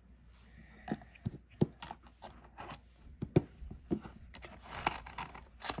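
Irregular small clicks, taps and light scraping as GoPro Hero 11 Black accessories are handled and set into the compartments of its zippered carrying case.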